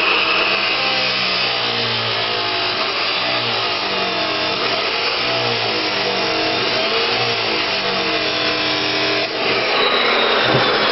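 Electric grinder running against steel, polishing the metal clean for welding, its motor pitch wavering as it is pressed into the work. It dips briefly a little after nine seconds, then picks up again.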